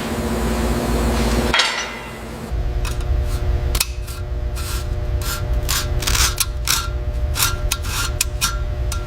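Hand-tool work: a spray hiss that stops about a second and a half in, then a run of sharp scraping and tapping strokes, roughly two or three a second, over a low steady rumble.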